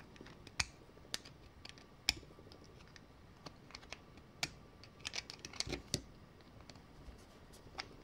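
Faint, irregular metal clicks and taps as the steel retaining ring is shifted on the brake shoes of a 1920s NSU bicycle hub's brake, with a cluster of clicks about five to six seconds in.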